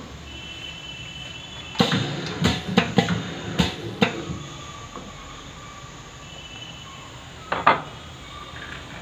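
A hard plastic part clicking and knocking against the metal and plastic jig of a pad printing machine as it is fitted by hand: a run of sharp knocks over about two seconds, then two more knocks near the end.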